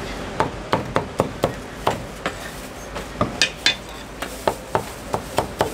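Chinese cleaver chopping roast pork belly on a thick wooden chopping block: a run of sharp chops, some in quick succession, with short pauses between runs.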